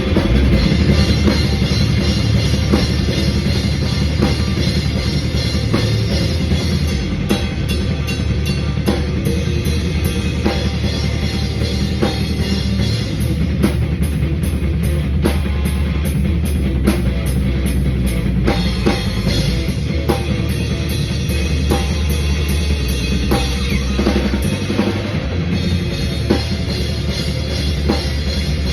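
Punk rock band playing loud at rehearsal: a drum kit pounds out a steady beat with bass drum and fast cymbal strokes over a heavy, sustained low end from the other instruments.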